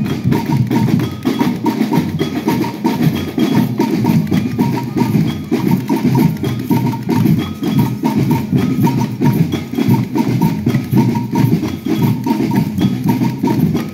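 Samba batucada drum band playing a fast, dense rhythm on silver-shelled drums: deep bass drums under rapid sharp strokes, with short high-pitched notes repeating on top.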